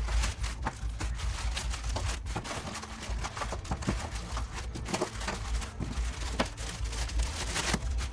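Irregular crinkling, rustling and clicking of packaging and small kit parts being handled close to the microphone, over a low handling rumble.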